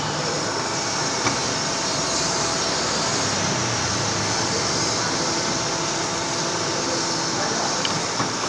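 Drilling machine running steadily while drilling a pin hole in a steel block, a constant machine noise with a few faint steady tones.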